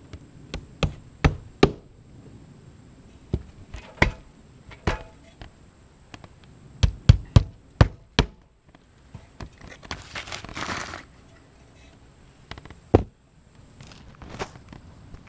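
Hammer driving nails: sharp blows in short groups, with a fast run of about six strikes midway, and a brief rustle partway through.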